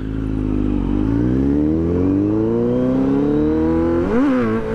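Kawasaki Z900's 948 cc inline-four engine pulling hard under acceleration, its pitch climbing steadily for about three seconds. About four seconds in it gives a quick rev up and back down, then holds steady.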